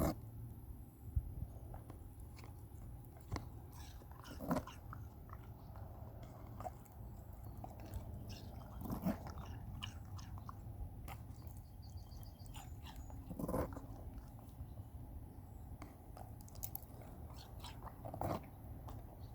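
A beagle biting into and chewing watermelon: irregular crunching bites, a few louder than the rest.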